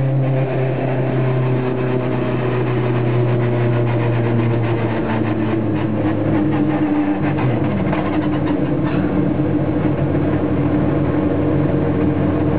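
Engine of a 2012 NGTC-spec Honda Civic touring car, a 2.0-litre turbo, heard from inside the cockpit. It runs at low revs, and its pitch drops about five seconds in as the car slows, then holds low and steady.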